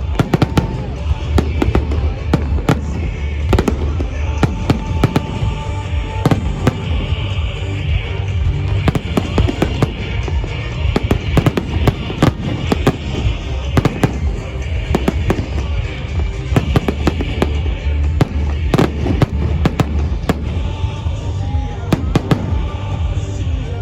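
Fireworks display going off in a dense barrage: rapid sharp bangs and crackles over a continuous low rumble, with music playing along.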